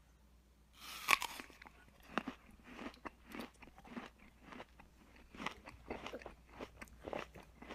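A toddler chewing and eating soft fruit close to the microphone: a run of short wet smacking and clicking mouth sounds, after a brief louder rustle about a second in.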